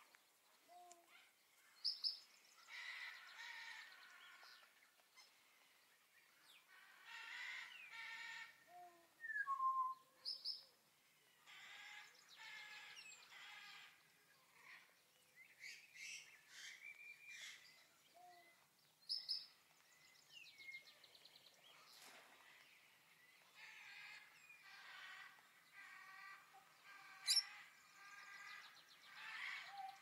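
Birds calling: bursts of chattering calls a second or two long, with short high whistled notes that recur about every eight or nine seconds and a single sharp chirp near the end.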